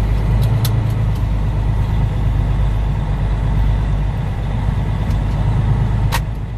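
Truck engine running with steady low drone and road noise, heard from inside the cab while driving, with a few brief clicks.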